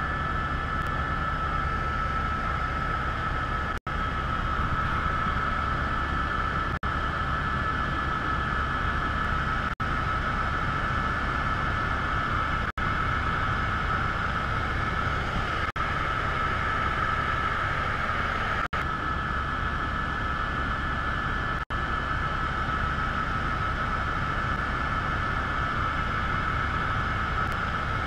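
Multirotor drone's propellers and motors whining steadily over a hiss, the pitch holding level as it hovers; the sound cuts out very briefly about every three seconds.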